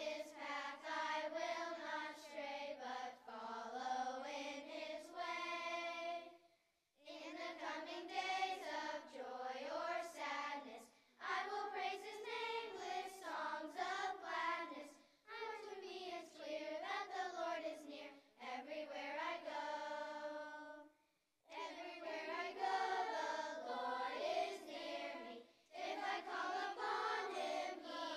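Children's choir of third- to sixth-graders singing, in phrases of a few seconds with short pauses between them and no instrument heard.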